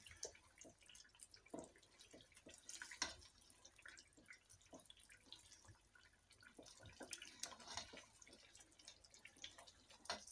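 Faint, irregular wet clicks and squelches of a spatula stirring chicken pieces through a thick yogurt gravy in a pot.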